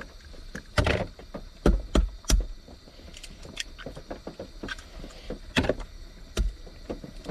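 Sharp knocks and small clicks of cooking handling: an egg being tapped and cracked against the pot, with utensils clattering. The loudest knocks come about a second in, three in quick succession around two seconds in, and more near the end.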